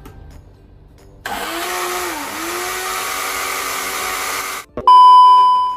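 Small personal bottle blender running for about three seconds, whipping an egg and sugar until foamy; its motor pitch dips briefly and recovers. It stops, and then a loud, steady high-pitched beep follows near the end.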